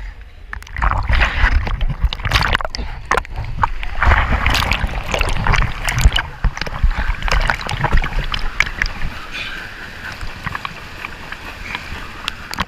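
Pool water splashing and sloshing against a camera held at the surface, churned by a swimmer's kicking. It turns loud about a second in, full of sharp slaps and splatters, and settles to a quieter steady wash over the last few seconds.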